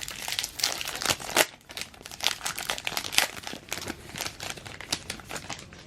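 Crinkly foil wrapper of a trading card pack being torn open and crumpled, a dense run of irregular crackles.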